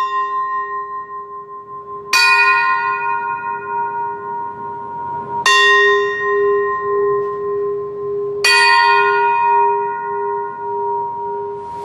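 A bell struck at intervals of about three seconds, each clear ringing tone sustaining into the next. One stroke lands just before the start, and three more come about two, five and a half and eight and a half seconds in.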